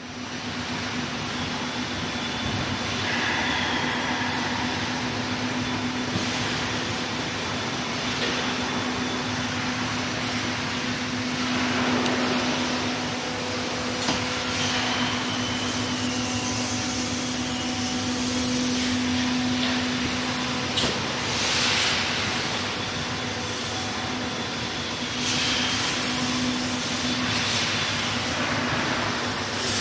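Iveco S-eWay electric truck moving slowly with its loaded low-bed trailer in a large hall: a steady hum and rolling noise with an even low tone throughout, echoing off the hall.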